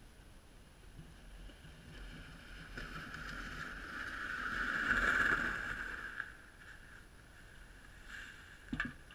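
Plastic ice-fishing sled and a person sliding down a snowy slope: a scraping hiss that swells as they come close, loudest about five seconds in, then fades away. A few short sharp knocks near the end.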